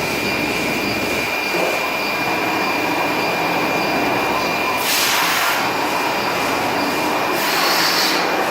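CNC machine running during metal machining: a steady mechanical noise with a thin high whine held throughout, and short bursts of hiss about five seconds in and again near the end.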